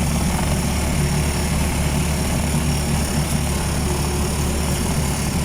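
Steady engine drone and road noise of a moving vehicle, heard from on board.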